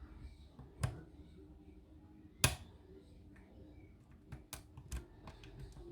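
Lock pick and tension wrench working the pins of a pin-tumbler lock, giving scattered sharp metal clicks: one about a second in, the loudest about two and a half seconds in, then a run of small quick clicks near the end as the pins are set.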